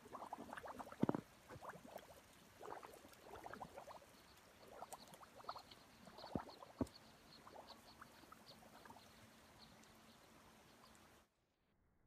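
Faint trickling and gurgling of water with irregular drips and small splashes, cutting off sharply to near silence near the end.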